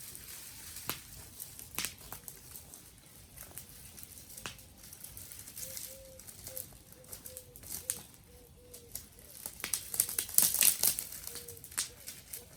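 Dry sticks and twigs crackling and snapping in irregular sharp cracks, thickening into a dense run of crackling about ten seconds in.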